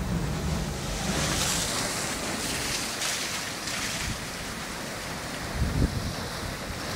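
Sea waves washing on a beach, the hiss of the wash swelling and fading over a few seconds, with wind buffeting the microphone.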